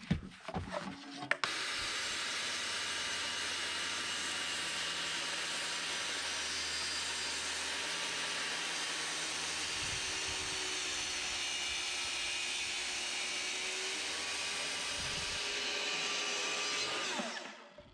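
Festool TS55 plunge-cut circular saw cutting along its guide rail through an oak beam, running steadily. It starts about a second and a half in after a few clicks and winds down near the end.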